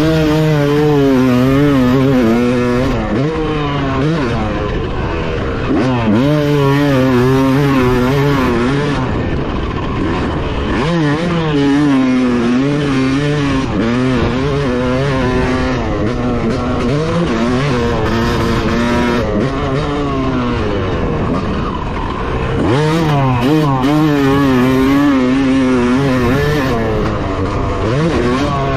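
Yamaha YZ250 two-stroke motocross bike engine with an FMF exhaust, ridden hard around a track: the pitch climbs and drops over and over as the throttle is opened and closed, with several long surges of acceleration every few seconds.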